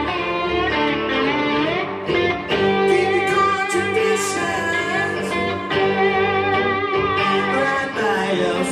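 Two electric guitars played together live on stage through the PA, a melodic guitar duet with held notes and no break.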